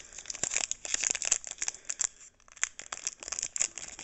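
Foil wrapper of a Pokémon trading card booster pack crinkling and crackling in the hands as it is worked open, with a run of irregular small crackles.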